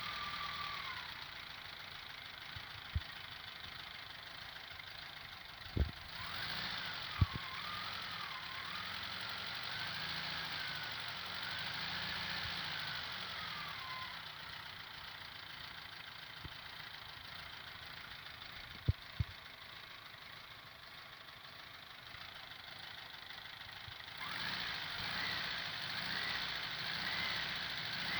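VW Fusca (Beetle) air-cooled flat-four engine idling, with a high whine from its new alternator that wanders up and down in pitch and comes and goes; the owner takes it for a bad alternator bearing. A few sharp knocks sound over the engine.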